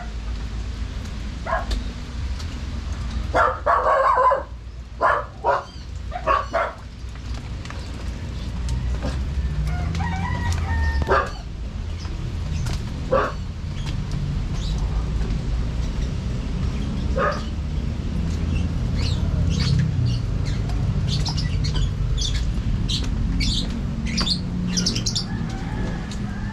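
Chickens clucking in short loud bursts a few seconds in, a held call about ten seconds in, and a run of quick high bird chirps in the last several seconds, over a steady low rumble.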